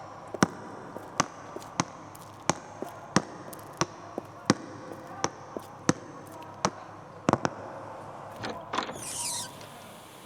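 Evenly spaced sharp taps, about three every two seconds, over a steady background hum, with a short high squeak near the end.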